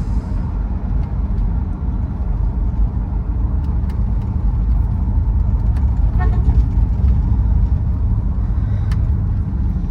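1966 Plymouth Belvedere's 383 V8, freshly tuned, running steadily as the car drives in second gear, a low rumble of engine and road noise.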